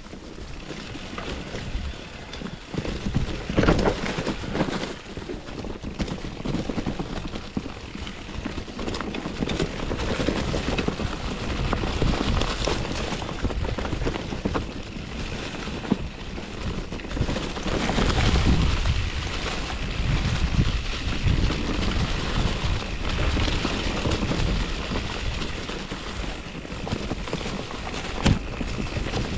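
Mountain bike descending a rough dirt trail: tyres crunching and rattling over stones and roots, with wind rushing over the microphone. The noise surges and dips with the terrain, with many small knocks.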